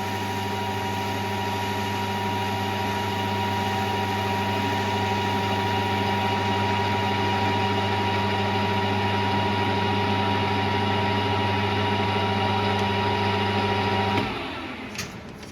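Warco GH1330 gear-head metal lathe running with a steady motor and gearbox hum, then switched off about 14 seconds in and winding down.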